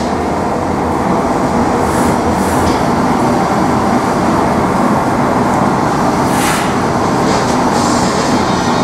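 Gas-fired glory hole, the glassblowing reheating furnace, running with a loud steady rushing noise from its burner and blower, with a couple of brief faint hisses on top.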